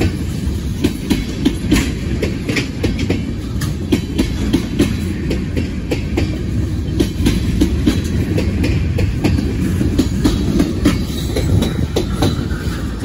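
Freight train tank cars rolling past close by: a steady low rumble of steel wheels on the rails, with frequent irregular clicks and clacks.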